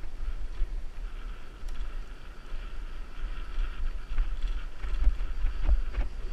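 A mountain bike rolling downhill on a dirt single track, heard from a camera on the bike or rider: a steady low rumble of wind and bike vibration on the microphone, with tyre noise over the dirt and a couple of sharp knocks from bumps near the end.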